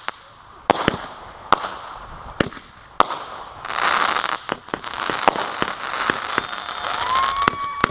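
Consumer fireworks going off: several sharp bangs, then a rushing hiss about halfway through, followed by rapid crackling. Near the end a whistle rises in pitch and then holds steady.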